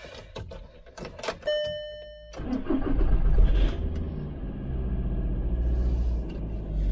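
A few light clicks, a short steady dashboard beep, then a car engine cranks and catches about two and a half seconds in, revs up briefly and settles into a steady fast idle. The engine had refused to start for half an hour and catches after a good dose of spray.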